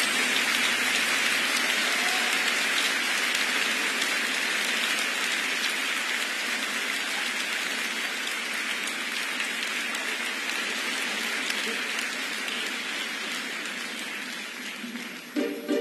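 Concert audience applauding: a dense, steady clapping that slowly fades. A little before the end, plucked string instruments start playing.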